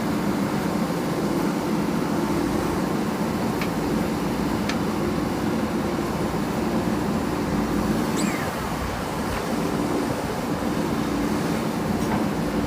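JCB 3DX backhoe loader's diesel engine running steadily at a constant working speed.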